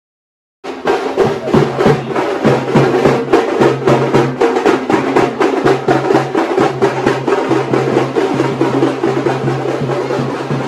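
Procession drums playing fast and loud, with dense rapid strokes over a steady low tone that drops out now and then. The drumming starts abruptly just under a second in.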